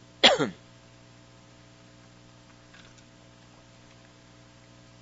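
Steady electrical mains hum with a low buzz and its overtones, left in the gap between words. Just after the start a brief man's vocal sound falls in pitch.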